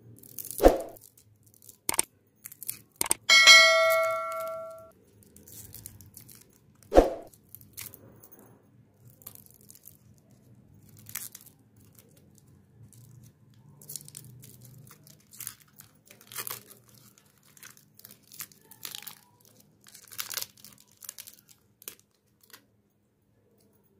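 Foil lollipop wrapper crinkling and tearing as it is peeled off the candy, in scattered crackles. A chime rings once about three seconds in and fades over a second or so. There are two sharp thumps, one near the start and one about seven seconds in.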